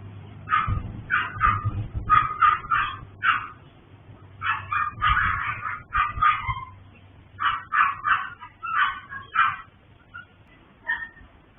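Small dogs barking and yapping in short volleys of several sharp barks, with pauses between volleys, and only a few scattered barks near the end. This is the incessant barking of a kennel with many small dogs.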